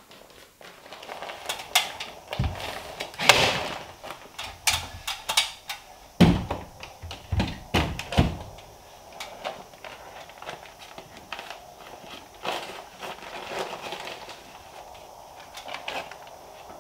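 A staple gun fired repeatedly, stapling kraft-faced insulation batts to the wall studs: a string of sharp clacks, several with a heavy thump, in the first half. Quieter rustling and knocking of the batts being handled follows.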